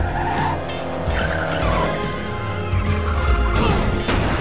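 Film sound of racing cars: engines running and tyres squealing and skidding, with a crash near the end, over background music.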